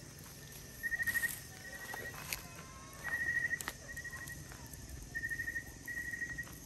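Crickets chirping in short pulsed trills on one high note, repeating about once a second, with a few sharp pops from a wood campfire.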